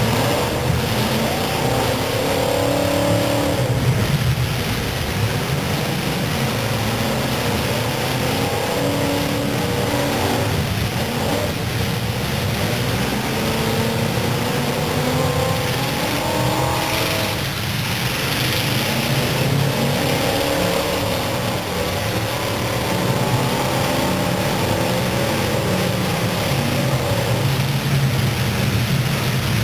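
Several full-size demolition derby cars' engines running and revving together, their pitch rising and falling over and over.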